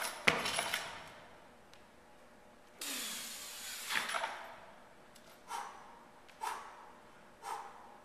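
A loaded steel Olympic barbell clanks at the start as it is pulled and caught in a clean, the bumper plates rattling. Then comes a long, loud breath, and three short, sharp breaths about a second apart while the lifter holds the bar at his shoulders.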